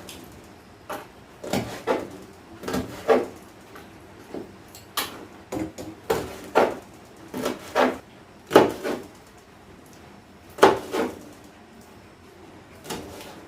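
Yard-long beans (barbati) being cut: irregular sharp knocks of the blade striking the cutting surface, about one a second, with pauses between runs of cuts.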